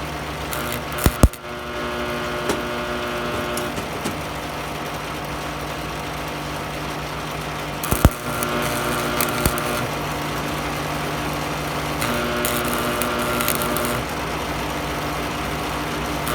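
Stick welding on thin metal with a Miller Thunderbolt 250 transformer welder. The arc is struck with sharp clicks and crackles in three short runs of two to three seconds each, the welder humming steadily underneath.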